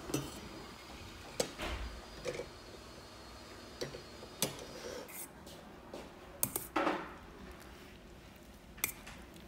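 Scattered clinks of metal cutlery against metal bowls and dishes, some eight or so short sharp strikes with a small cluster about two-thirds of the way through, over a low steady background noise.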